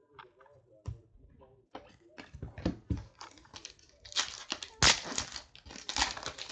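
Wrapper of a Panini Prizm trading-card pack being torn open and crinkled by hand, with cards rustling. The rustles come irregularly, loudest about four to five seconds in and again around six seconds in.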